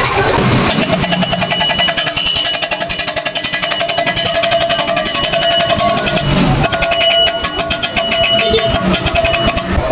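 Stick-welding arc from a 2.5 mm rod at about 75 amps on thin square steel tube, crackling and sputtering steadily. The arc breaks off about six seconds in and strikes again a moment later.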